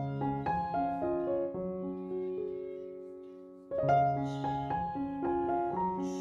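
Background piano music, slow and gentle: single notes and chords, one chord left to fade away before the playing starts again a little past halfway.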